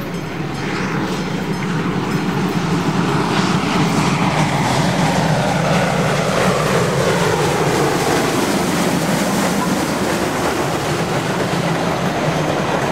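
Steam locomotive passing close while hauling a passenger train, followed by its coaches rolling by on the rails. The sound grows louder about two seconds in and stays loud.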